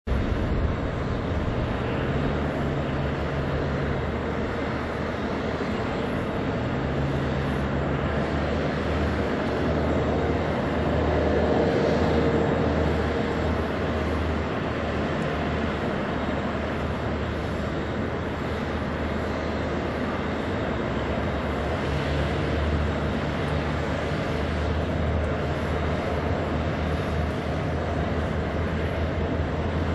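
Airbus A330-323 airliner with Pratt & Whitney PW4000-series turbofans on final approach and touchdown, heard as a steady distant jet rush that swells slightly about a third of the way through.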